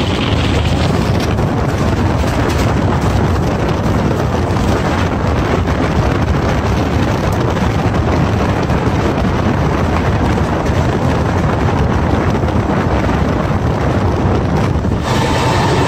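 Loud, steady wind rush buffeting the microphone at the open door of a fast-moving train, over the rumble of the coaches running on the track. It changes abruptly near the end.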